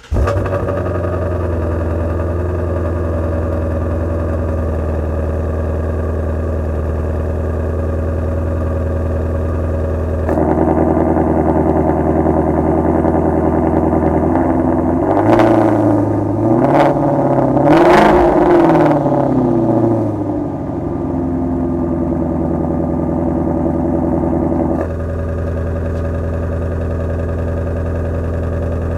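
Ford Mustang Shelby GT350's 5.2-litre flat-plane-crank V8 idling through its quad exhaust tips. About ten seconds in the active exhaust valves open and the idle turns louder and fuller. It is revved in a few quick blips a few seconds later, then settles back to idle. Near the end the valves close and it drops to the quieter standard exhaust note.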